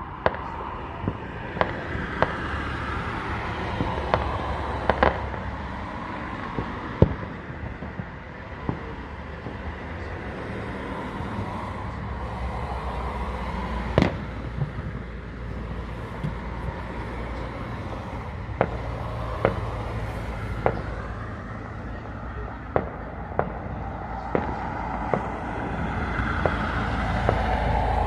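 Fireworks going off: sharp bangs at irregular intervals over a steady background rumble, the loudest about a quarter and halfway through.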